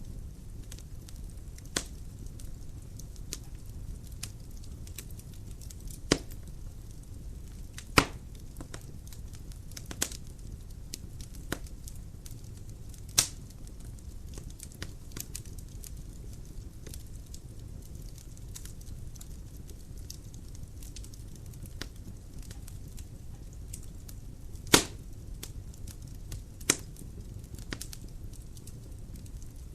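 Dry firewood burning in a fireplace: a low steady rumble of the flames with scattered sharp crackles and pops. The loudest pops come about eight seconds in and again about twenty-five seconds in.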